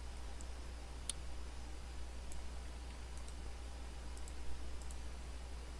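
A few faint, scattered computer mouse clicks over a steady low hum.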